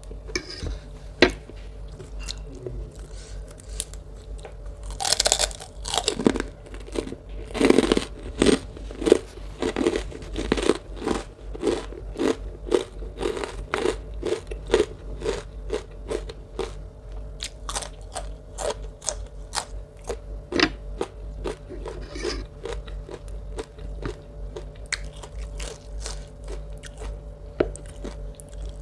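Close-miked chewing and crunching of a Thai rice-noodle salad with raw vegetables: a steady run of crisp, wet crunches several times a second, thickest and loudest about a quarter of the way in.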